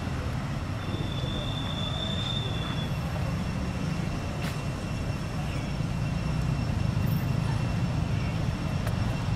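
A steady low rumble of outdoor background noise with a thin, steady high whine above it. About a second in, a clear high tone is held for about two seconds.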